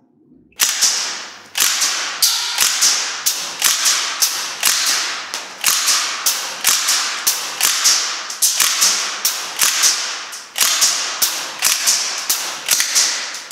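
Northeast Sten MK5 gas blowback airsoft replica firing a steady string of single shots on propane, about two a second, each a sharp crack with the blowback bolt cycling.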